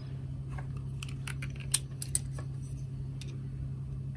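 Scattered light clicks and taps as small yarn snips are picked up and handled over a piece of yarn, the sharpest click a little under two seconds in, over a steady low hum.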